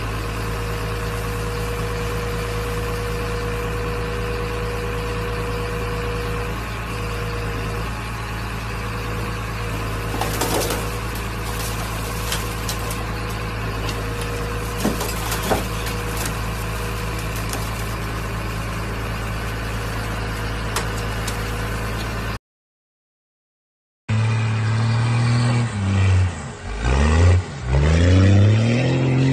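A heavy machine's engine running steadily while its grapple crushes and pulls apart an old pickup truck, with sharp metal cracks about ten and fifteen seconds in. After a short gap, a pickup truck's engine revs hard, dipping and climbing in pitch, as it churns through deep mud.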